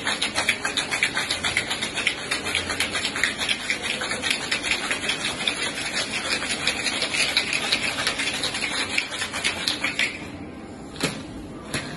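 Ice rattling in a metal cocktail shaker shaken hard and fast, about five strokes a second, stopping about ten seconds in. Two sharp knocks follow near the end.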